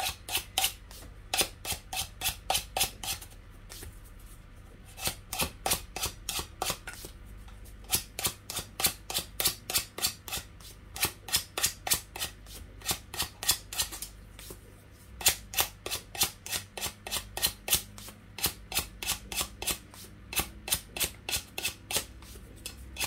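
Emery board rasping back and forth along the edge of a glass plate, filing off the excess decoupage napkin. Quick strokes, about four a second, in runs broken by short pauses.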